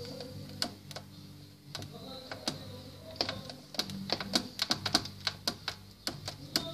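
Fingers tapping on a handheld device's keys or screen: short irregular clicks, sparse at first, then coming in quick runs from about three seconds in, over a steady low hum.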